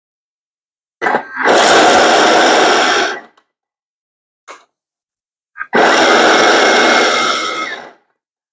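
Blender grinding blanched almonds into almond flour in two pulses at top speed, each about two seconds long, with a faint click between them. The short pulses keep the almonds from heating up and releasing their oil.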